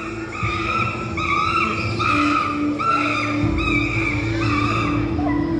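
Monkey chattering sound effect played over the hall's speakers: a string of high, squealing, arching calls repeating about once a second, over a steady low background tone.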